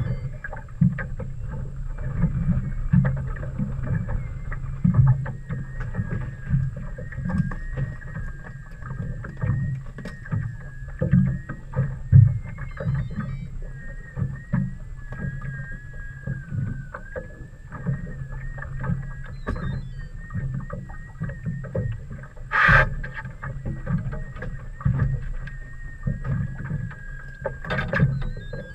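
Water slapping irregularly against a small boat's hull over a steady low hum, with a thin wavering whine above it. Two sharp knocks, one about three-quarters of the way through and one near the end.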